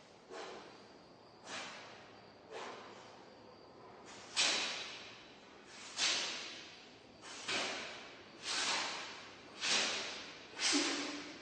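Panda sneezing over and over: about nine sharp sneezes, a second or so apart, the first few fainter and the later ones louder.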